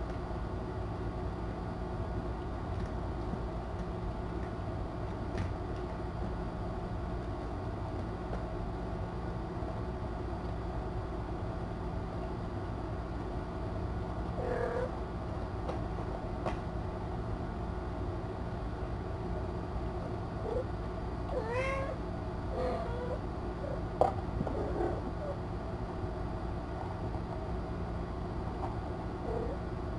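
Cats meowing: a short meow about fifteen seconds in, then a cluster of short meows, one rising steeply, between about 20 and 25 seconds, and a couple more near the end, over a steady low hum. A sharp tap comes in the middle of the cluster.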